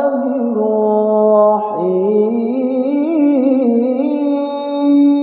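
A male qari's solo voice in melodic Qur'an recitation (tilawah), holding long drawn-out notes with wavering ornaments. About two seconds in he starts a new phrase that glides up from a lower pitch and settles into a higher held note.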